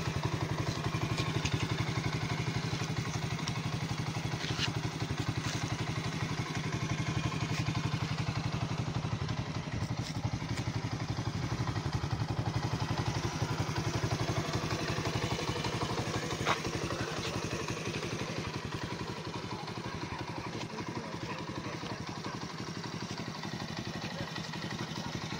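Honda CD 70's small single-cylinder four-stroke engine idling steadily, with one short click about two-thirds of the way through.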